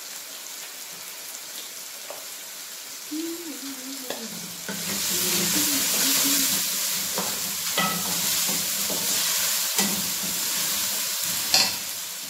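Onion-tomato masala sizzling in hot oil in a pan while it is stirred with a spatula. The sizzle gets much louder about five seconds in, and the spatula knocks against the pan a few times, most sharply near the end.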